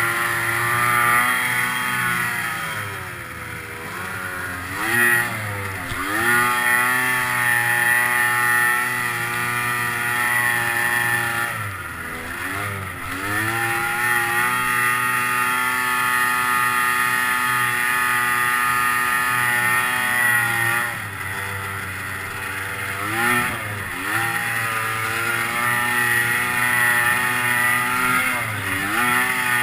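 Arctic Cat 600 two-stroke snowmobile engine running at high revs under load on an uphill climb. The engine note dips briefly and picks back up several times.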